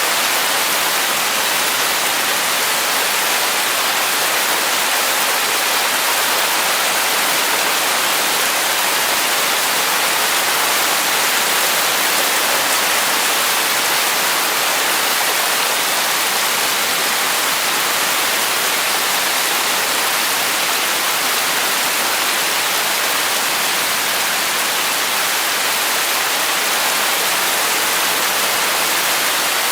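Heavy rain falling: a dense, steady hiss with no separate drops or thunder standing out.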